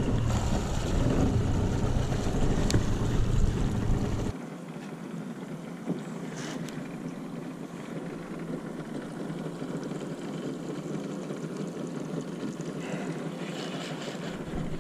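Wind rumbling on the microphone over steady water and boat noise on a river. The rumble cuts off suddenly about four seconds in, leaving a quieter, even hiss with a few faint knocks.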